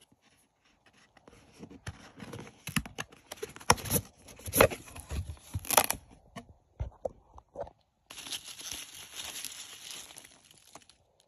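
Cardboard mailer box being torn open: a few seconds of sharp rips and knocks of cardboard and tape. From about eight seconds in, hands rustle steadily through packing peanuts and bubble wrap.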